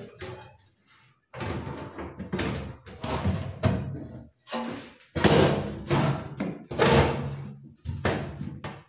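Sheet-metal plate evaporator coil being handled and pushed into a fridge's freezer compartment: a run of irregular thumps and knocks of the thin plate against the cabinet's plastic liner, as it is tried in a compartment it will not fit into.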